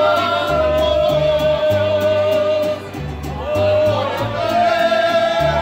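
People singing loudly to Latin music, holding one long note for nearly three seconds and then another near the end, over a bass line that steps from note to note.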